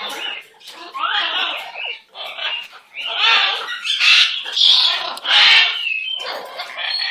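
Pet parrot calling in a run of short, separate calls, with the loudest ones coming between about three and six seconds in.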